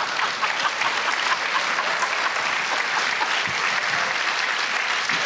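Studio audience applauding: many hands clapping at once in a dense, steady patter.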